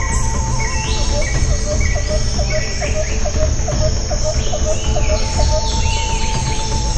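Forest insects and birds calling together. Repeated short chirps, a trilling call and a run of short pulsed notes from about a second in, rising whistled calls higher up, and a steady whistled tone near the end, all over a steady low rumble.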